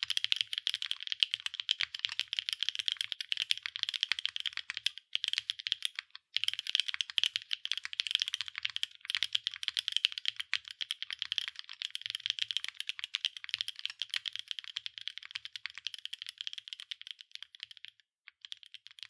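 Steady, fast typing on a NEO80 mechanical keyboard with Lichicx Durian Ice Cream linear switches (nylon housings, POM stems), an aluminium plate and PBT/ABS double-shot keycaps: a dense run of keystroke clacks with a few brief pauses, stopping near the end.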